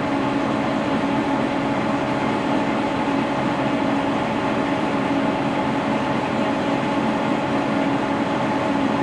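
Milling machine running steadily, its spindle turning a coaxial centering indicator: an even mechanical hum with a few held tones.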